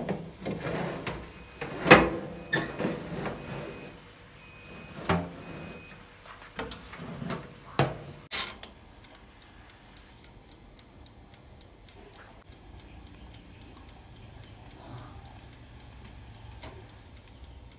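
Knocks and clatter of a baking tray being put into an oven and the oven being shut, with one loud knock about two seconds in. A run of faint short beeps plays through the first half. It then falls quiet.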